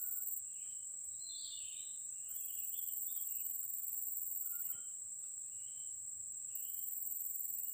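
Forest insect chorus: a steady high-pitched buzz, with a still higher layer that twice drops out for a couple of seconds and comes back. A few short bird chirps over it.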